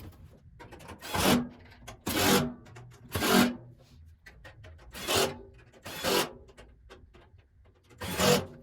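Six short rasping scrapes, each about half a second long and roughly a second apart, with a longer pause before the last one.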